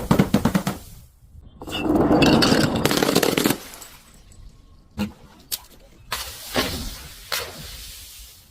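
Things being crushed and broken: a quick run of crackling snaps, then a loud crunching crush lasting about a second and a half, followed by a few sharp cracks and a second, quieter crunch.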